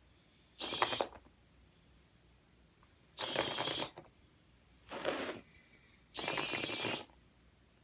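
Small plastic-geared motors of a LEGO micro:bit tank whirring in four short bursts, each under a second, the third one weaker: the motors being driven in brief commands from the remote app.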